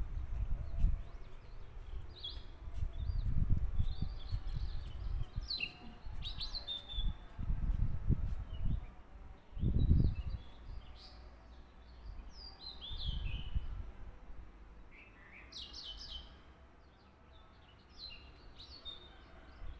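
Small birds chirping in short, scattered calls, some falling in pitch. Under them come dull low thumps and rustles as the paper strips are handled on the table, the loudest about ten seconds in.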